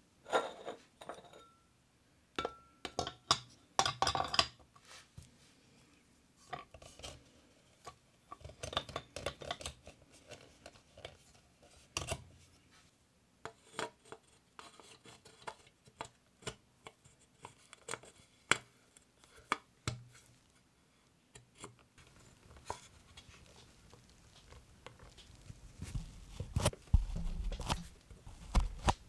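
Irregular clicks, taps and light scrapes of small metal parts being handled, with quiet gaps between them, and a louder stretch of rustling and knocking near the end.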